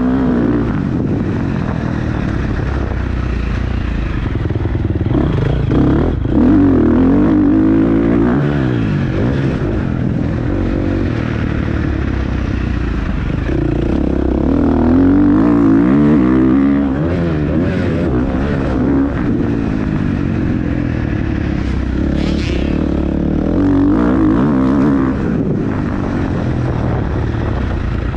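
An engine running and revving up and down over and over, its pitch rising and falling.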